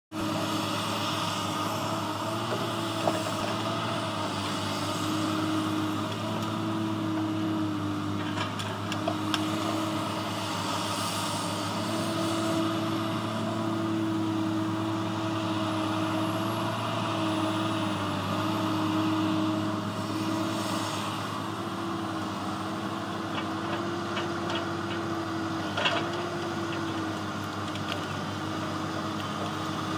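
Diesel engine of a grapple log loader running steadily as it works, its pitch dipping briefly now and then, with a couple of sharp knocks, about three seconds in and again near the end.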